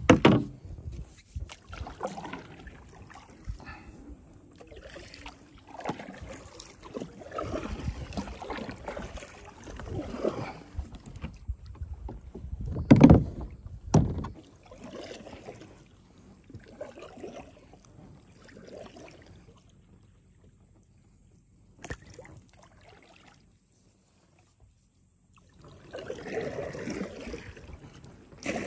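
Water and handling sounds from a plastic kayak: irregular splashes and knocks about a second apart. The loudest is a thump about halfway through. A quiet spell follows before more splashing near the end.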